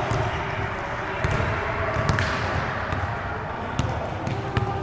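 A ball bouncing on a hard court in a large indoor hall, with scattered sharp knocks.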